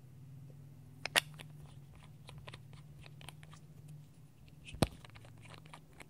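Glass nail polish bottles and their plastic caps being handled: two sharp clicks, about a second in and near five seconds, with soft ticks and taps between, over a faint steady low hum.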